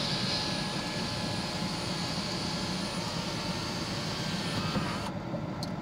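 Power sunroof of a 2005 Hummer H2 sliding closed, its electric motor whirring steadily over a low hum, the whir cutting off about five seconds in.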